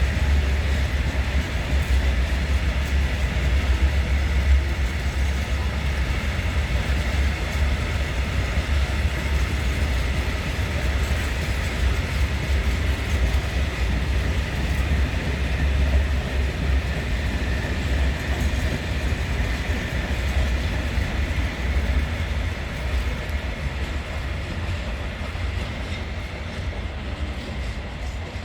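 Freight train of Eas open wagons rolling past at steady speed: a continuous rumble of wheels on rail, easing a little near the end.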